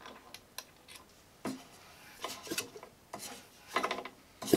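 Handling noises of a metal propeller spinner being fitted by hand over a wooden propeller: a string of short rubbing scrapes and clicks, loudest near the end as the propeller is spun by hand.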